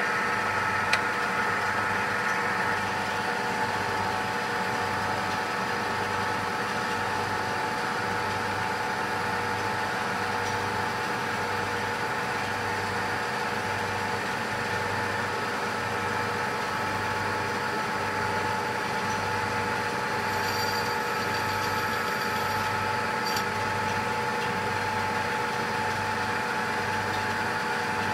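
Metalworking lathe running steadily, spinning a steel tube supported in a plywood steady rest, with a steady multi-tone whine and a low, evenly repeating throb.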